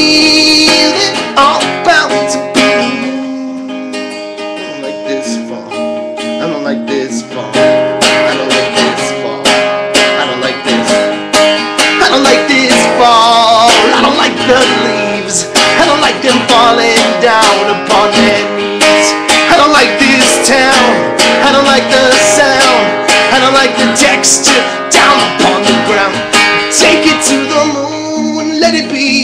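Acoustic guitar playing an instrumental passage, strummed and picked. It turns quieter for a few seconds near the start, then fuller again.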